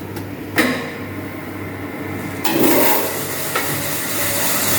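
Crank grinder running with a steady hum, a sharp knock about half a second in, then from about two and a half seconds in a steady hissing grind as the face of a steel cylinder sleeve is touched against the side of the grinding wheel to true it flat.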